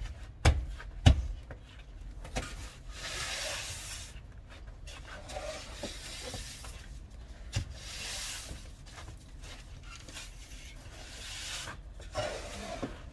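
Snow being scraped and shovelled: a few dull thuds in the first second, then long rasping scrapes about every four seconds.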